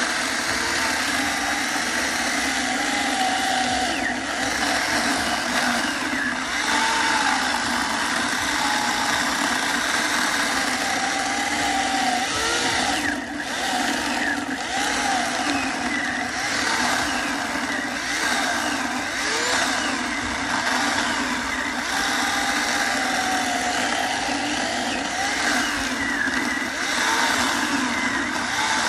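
Electric chainsaw running continuously, its whine wavering up and down in pitch over and over.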